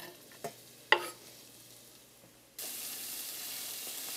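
Two sharp knocks as chopped onion is scraped off a wooden cutting board with a knife into a stainless steel pan. About two and a half seconds in, a steady sizzle of onions frying in hot oil starts abruptly.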